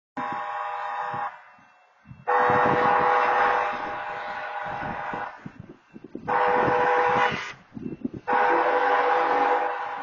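Train horn sounding at a railroad grade crossing in four blasts: a short one, a long one, a short one, and a long one that carries on. Each blast is a chord of several steady tones.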